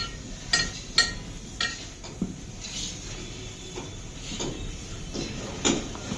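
Light metallic clinks and knocks of hand work on a tyre while an inner tube is fitted into it. A few sharp, ringing clinks come in the first couple of seconds, then quieter handling knocks.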